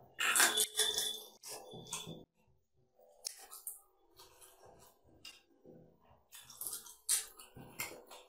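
Fingers mixing rice with curry on a ceramic plate, squishing and scraping against it, with chewing. Sharp crackly bursts come in the first second and again near the end, with softer sounds in between.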